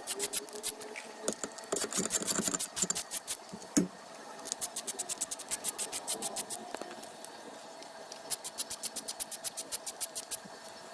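Ratchet clicking in quick even runs, about nine clicks a second, as T27 Torx screws are backed out of a Harley-Davidson primary chain inspection cover, with a single sharper knock about four seconds in.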